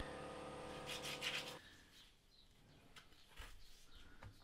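A steady hum that stops abruptly about a second and a half in, with a few light clicks just before it stops. Then faint rubbing and small clicks as the parts of a rusty strut top-mount bearing are handled.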